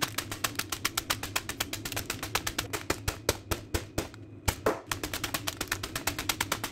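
Potato chips crushed by hand inside their sealed plastic snack bag, giving rapid crunching and crackling with a short pause about four seconds in.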